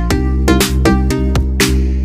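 Background electronic music with a deep bass line and a steady beat.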